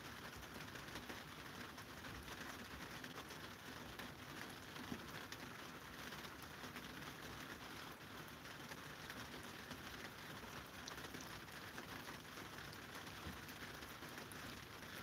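Several cats licking and lapping lickable treat paste from squeeze tubes: a faint, steady patter of small wet clicks.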